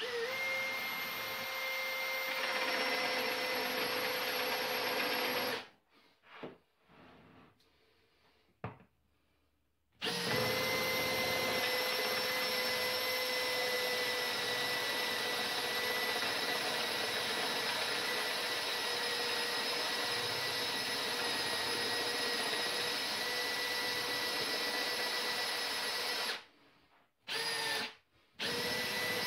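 Cordless drill boring a hole in a wood board with a Forstner bit, its motor running steadily under load. It stops about five seconds in, gives a few short trigger bursts, then runs steadily again from about ten seconds, with another short break near the end.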